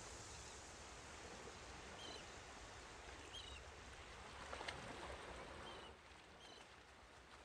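Faint seaside ambience: a steady wash of surf with a small bird's short, high chirps repeating every second or so.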